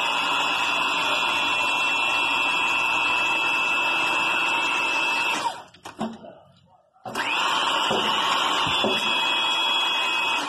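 Hydraulic pump driving a mono-strand post-tensioning stressing jack, running steadily with a high whine as it pressurises the jack to tension the steel strand. It cuts off about halfway, goes nearly quiet for over a second, then starts again with a brief rising whine and runs on until it cuts off near the end.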